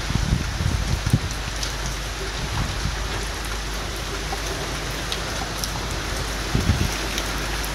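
Heavy rain pouring down steadily, with scattered sharp drops striking close by. Gusts of wind buffet the microphone with low rumbles near the start and again near the end.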